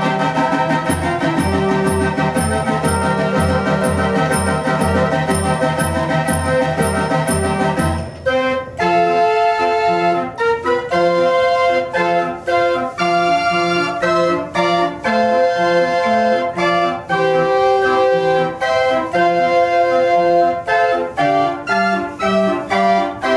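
Mechanical pipe organ played from a folded punched-cardboard music book, playing a tune. For the first eight seconds or so a steady pulsing bass beats under the full accompaniment; then the bass drops out and a lighter melody of short detached notes continues.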